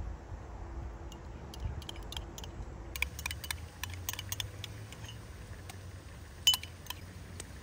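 A scattering of light, sharp clicks and clinks, thickest in the second half, with one louder click about six and a half seconds in, over a low steady rumble.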